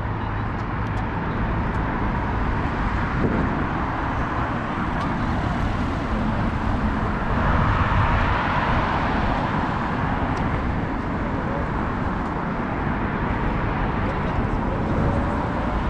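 City road traffic ambience: a steady wash of cars going by on the road alongside, with one vehicle passing louder about halfway through.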